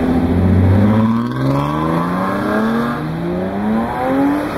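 A vehicle engine accelerating, its pitch rising steadily over several seconds, over the low rumble of other engines running.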